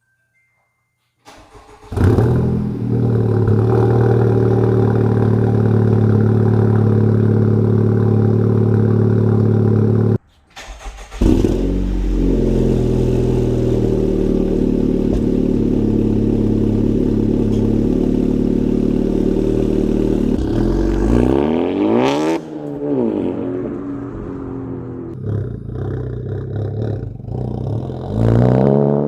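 Honda Civic Type R FK8's turbocharged 2.0-litre four-cylinder, fitted with an aftermarket cat-back exhaust, cold-started twice: each start catches sharply into a loud, steady high cold idle. In the second run the pitch dips and swings back up about 22 seconds in, then the idle settles quieter and more uneven.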